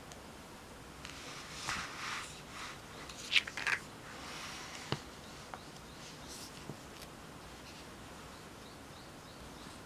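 Brief rustling and sliding of paper as a grid notebook is shifted on the desk, a few short rustles over about three seconds, then a single sharp click and a few faint ticks.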